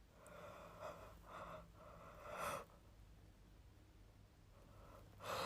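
A person yawning: faint breathy sounds that build to a louder one about two and a half seconds in, which stops abruptly.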